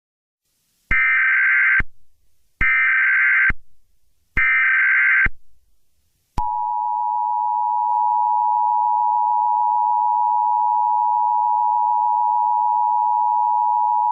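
Emergency Alert System tones: three short bursts of SAME header data, each under a second long and about a second apart. A few seconds in, the EAS attention signal starts, a steady two-tone beep of 853 and 960 Hz held without a break.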